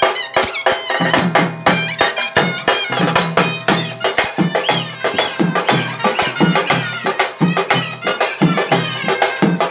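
Live folk street band: barrel drums beaten with sticks in a fast, steady rhythm, with a wind instrument playing a melody over the drums.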